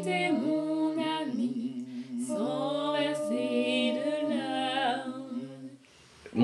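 Voices singing a cappella: a sung melody over held low notes. The singing stops about six seconds in.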